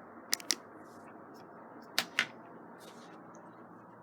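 Two quick pairs of sharp clicks, about a second and a half apart, from handling a weather radio receiver, over a steady low hiss.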